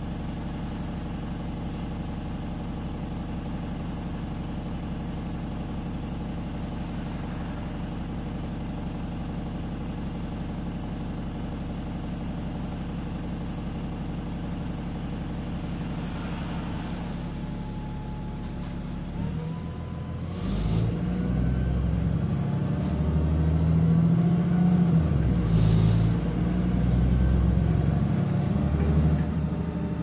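Wright Gemini 2 double-decker bus (VDL DB300 chassis) heard from the upper deck. The diesel engine runs steadily at a low hum, then about two-thirds through the bus pulls away and the engine grows louder and rumbles, with a rising whine from the driveline. A couple of short air hisses come in while it drives.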